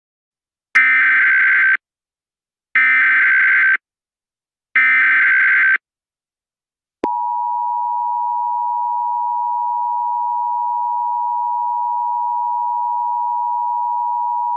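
Emergency Alert System header signal: three one-second bursts of SAME data screech, about a second apart. About seven seconds in, the steady two-tone EAS attention signal begins, marking the start of an emergency alert.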